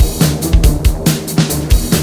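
Background music with a fast drum beat.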